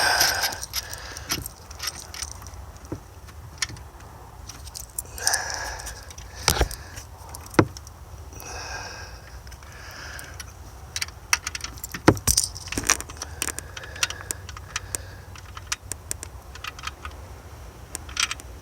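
Hand tools and bolt hardware clinking and rattling against metal, with scattered sharp clicks, as the alternator's mounting bolts and nuts are fitted and tightened.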